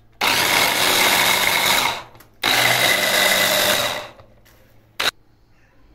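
Electric hand-blender chopper running in two bursts of about a second and a half each, with a steady motor whine, puréeing watermelon chunks. A short click comes about five seconds in.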